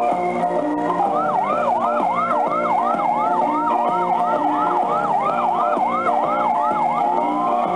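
Electronic fire-engine siren sound effect from a Falgas Fire Truck 2S kiddie ride: a fast rising yelp repeated about two or three times a second, with a slower rising wail under it, changing to a single slow rising wail near the end. It plays over steady organ-like music.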